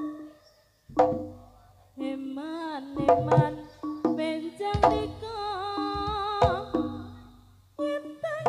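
Live Javanese jaranan music: a wavering melody line over drum strokes. It falls away almost to nothing just after the start, with one lone stroke about a second in, then picks up again and runs on with a short break near the end.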